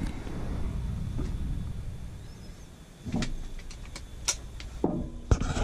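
Handling noise as the damper motor is turned on its galvanized steel mounting plate to line up the screw holes: a low rubbing rumble, then a few light metal clicks and knocks.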